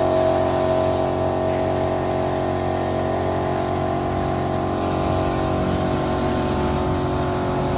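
Power grinder used for porting a two-stroke cylinder block, its motor running steadily at one pitch.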